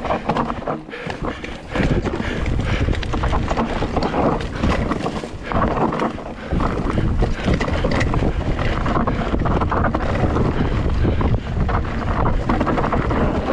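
Mountain bike running down a rough dirt trail: wind buffeting the camera microphone, tyres on loose dirt, and the bike's chain and frame rattling with many quick knocks over the bumps.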